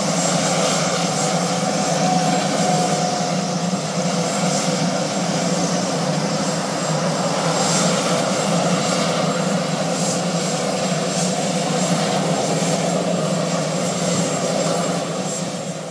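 RAF helicopter running on the ground, a loud, steady engine and rotor drone with a held hum and whine.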